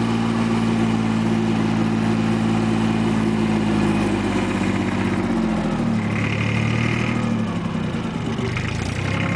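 Compact diesel farm tractor engine running while driving, then dropping in pitch about four seconds in as it is throttled back toward idle.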